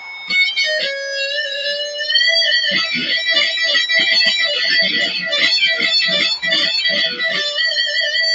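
Electric guitar shredding: a held note sliding in pitch about a second in, then a fast lead run of rapid notes.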